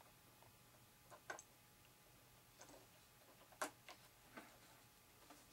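A handful of faint, scattered clicks and taps of small model-aircraft linkage parts being fitted back together by hand, the sharpest about three and a half seconds in.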